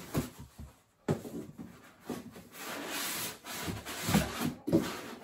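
Hands rummaging in an emptied packaging box: rubbing and scraping with a few knocks.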